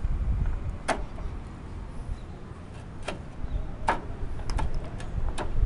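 Interlocking French-style clay roof tiles clacking against each other and the battens as they are set back in place: about five sharp clacks spread over a few seconds, over a low rumble.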